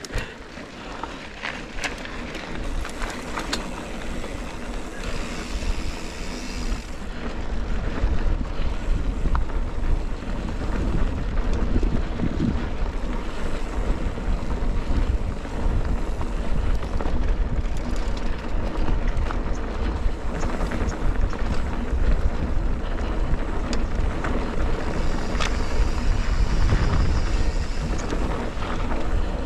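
Wind buffeting a ride-along camera's microphone over the rumble and rattle of a mountain bike running down a dirt trail, with scattered sharp knocks and clicks from the bike. It gets louder after the first several seconds and then stays loud.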